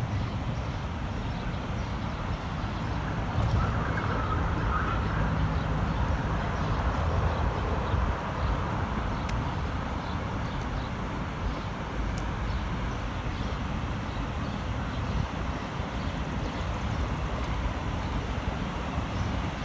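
Steady city traffic noise: a low rumble of cars and engines from nearby roads.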